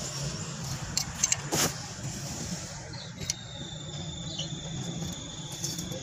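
A few sharp metal clicks and knocks about a second in, from a bandsaw's bearing blade-guide assembly being handled and adjusted, over a steady low hum. A thin, steady high tone comes in about three seconds in.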